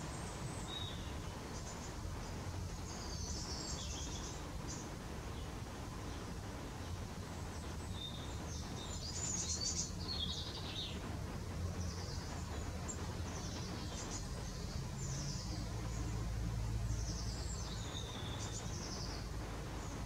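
Small songbirds making short, high, thin calls again and again, over a steady low background rumble.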